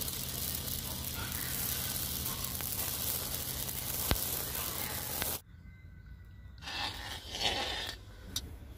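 Amaranth grains popping in a hot iron kadhai while a cloth sweeps them around: a steady hissing crackle that cuts off suddenly about five seconds in. After that, quieter, with a few short scrapes of a wooden spoon stirring syrup in the kadhai.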